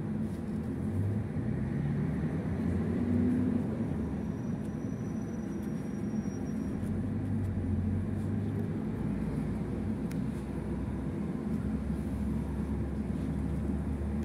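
Steady low hum inside a BKM 60102 low-floor tram standing at a stop, its low drone shifting a little in pitch now and then. A faint thin high whine sounds for a few seconds about four seconds in.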